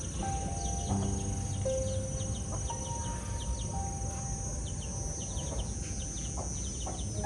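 Outdoor ambience: a steady high insect drone with many short, quick bird chirps, over a faint slow melody of held notes.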